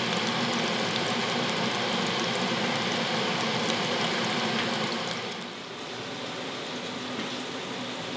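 King salmon fillets sizzling in oil in a nonstick frying pan over medium-low heat: a steady hiss with scattered small pops, a little quieter from about five seconds in.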